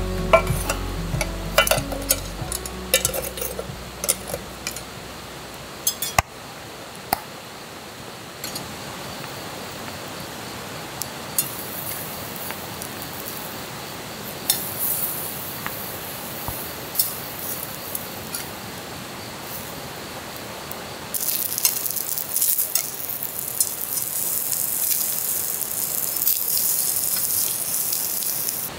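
Camp cooking: scattered clinks and taps of metal utensils on cookware, then, about 21 seconds in, a louder, steady sizzle of food frying in a hot pan that stops abruptly. Background music fades out in the first couple of seconds.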